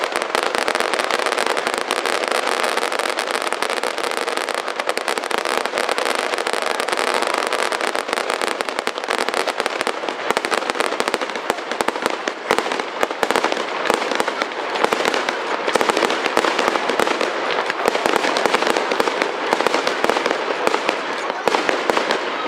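Fireworks: a dense, continuous barrage of aerial shells bursting, packed with crackles and pops. From about halfway through, the sound breaks into more separate, sharp cracks.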